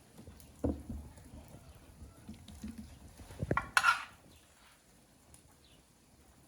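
Cookware being handled while cooking: a few dull knocks, then a short harsh scrape or clatter about four seconds in.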